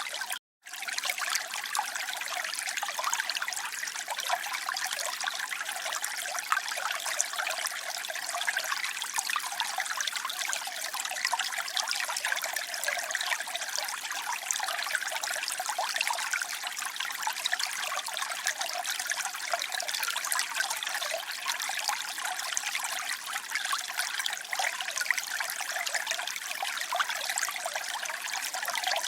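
Water trickling and splashing steadily, a dense bright hiss with little low end. It cuts out completely for a split second near the start.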